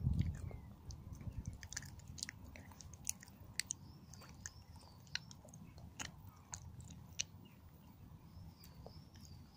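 Close-up chewing and crunching of a chocolate Easter egg's shell, with many small sharp crackles; loudest in the first second.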